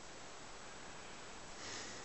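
Faint, steady background hiss with no distinct event, and a soft swell of hiss near the end.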